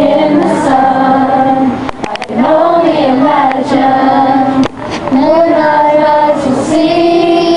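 A group of children singing together in one melody line, in sung phrases of about two seconds with short breaks between them.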